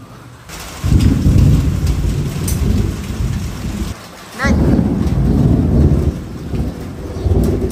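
Thunder rumbling in two long rolls, the first starting about a second in and the second just after the middle, over steady rain.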